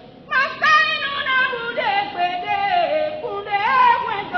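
A solo voice singing a chant, its pitch swooping up and down in wide glides, starting about a third of a second in.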